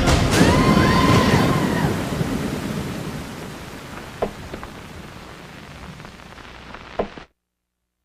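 A rushing wash of noise, with a few faint rising-and-falling tones early on, fading steadily over about seven seconds. Two faint clicks come through near the end, then it cuts off to silence.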